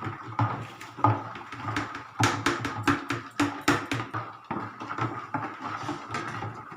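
A stirring stick or spoon knocking and scraping against the side of a mixing container of liquid soap mixture, in quick repeated knocks that come fastest and loudest between about two and four seconds in.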